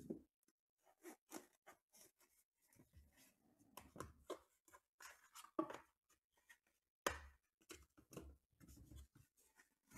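Quiet handling of small cardboard trading-card boxes and cased cards: lids lifted off, cards slid out and set down, a string of soft rustles and light taps. Two sharper knocks come about five and a half and seven seconds in.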